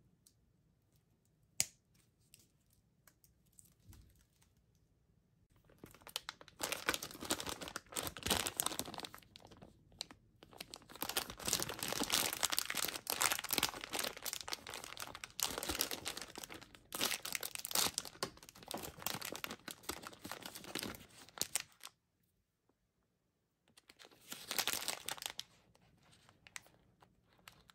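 Plastic candy bag of Skittles Gummies being crinkled and torn open: a dense run of rustling and tearing lasting about fifteen seconds, then a short burst of crinkling after a brief pause. A single sharp click comes about a second and a half in.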